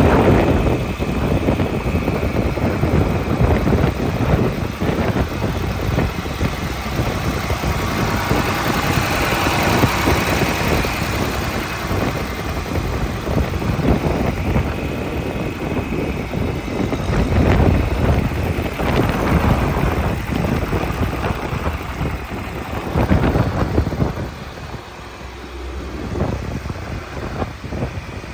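1962 John Deere 4010's six-cylinder diesel engine running, its level rising and falling and dropping lower near the end.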